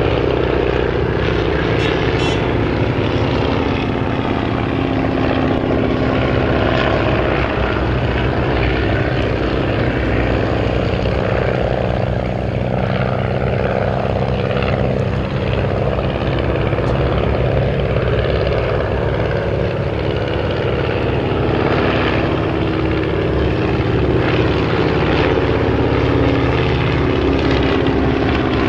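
North American P-51D Mustang's Packard Merlin V-12 engine and propeller running loud and steady, the engine note shifting in pitch around the middle.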